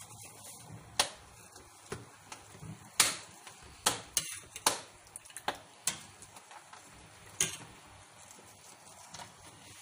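A metal spoon clinking and scraping against the side of a steel pot as milk is stirred. There are about nine sharp clinks at irregular gaps, the loudest about three seconds in, and they stop near the end.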